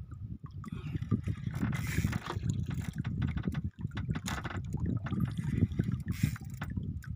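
Water sloshing and gurgling against the hull of a small outrigger boat, with a few brief scrapes and knocks.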